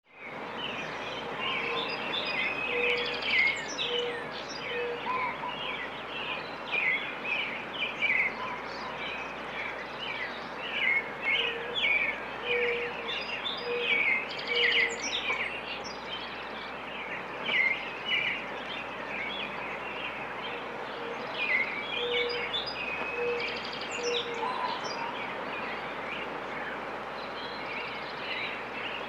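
Several songbirds chirping and trilling over a steady background hiss. A lower call of four or five evenly spaced notes recurs three times.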